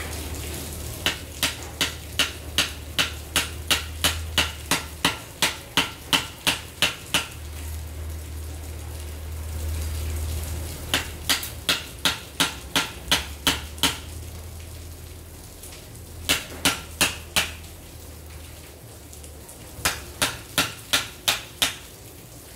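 Hammer striking a flat steel chisel driven into the stator slots of a burnt-out three-phase motor, cutting out the old copper winding. Four runs of sharp metallic strikes come about three a second; the first run is the longest.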